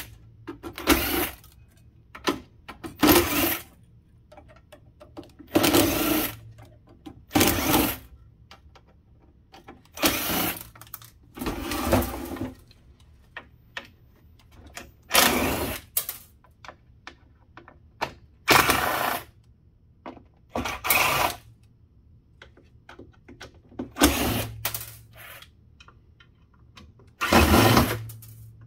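Cordless drill-driver run in short bursts of about a second each, backing screws out of a sheet-metal instrument chassis, about a dozen times, with small clicks and knocks of metal panels in the gaps between.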